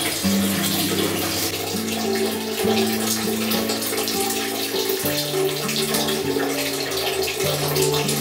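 Steady running water during a dog's bath, with soft background music of long low notes that change every second or so.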